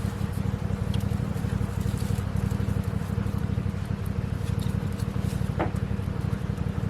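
An engine running steadily: a low, fast, even throb with a steady hum above it.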